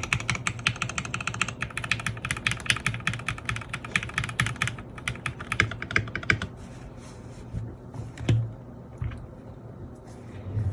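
Fast typing on a KC87 mechanical keyboard with Gateron Pro Yellow linear switches, foamed in the case and under the plate but without switch foam, giving a fairly muffled sound. The rapid run of keystrokes stops about six seconds in, and a few single key presses follow.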